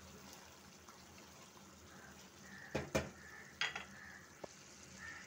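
Chicken curry being fried down in a steel pan with a faint, steady sizzle, while a wooden spoon stirs it, knocking and scraping against the pan a few times around the middle.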